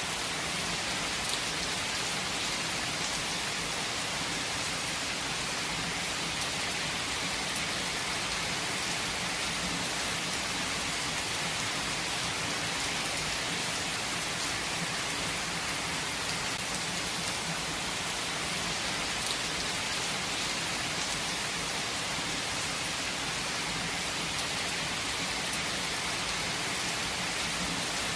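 Steady rain falling in a forest, an even hiss with scattered faint drop ticks.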